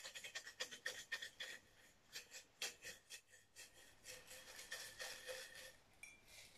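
Folded paper slips rattling inside a ceramic mug as it is shaken, a faint rapid clatter in several bouts.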